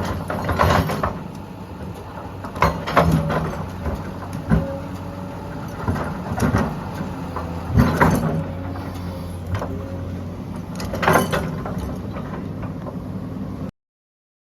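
SANY SY210 excavator's diesel engine running steadily, with repeated loud clanks and scrapes of the bucket and load at irregular intervals of a second or two. The sound cuts off suddenly near the end.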